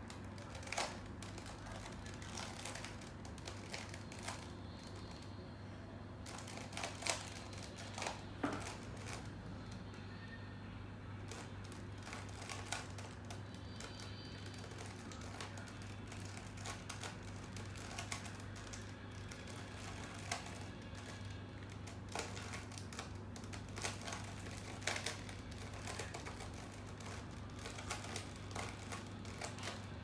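A 3x3 Rubik's cube being turned quickly by hand, its plastic layers clicking and clacking in irregular runs, over a steady low hum.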